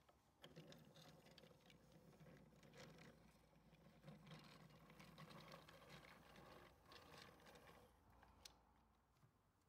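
Near silence: room tone with faint scattered rustles and small clicks, and one slightly sharper click near the end.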